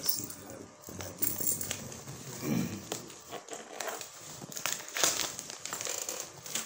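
Paper and tape rustling and crinkling as a cardboard parcel is unwrapped by hand, with scattered small clicks and scrapes from handling the box.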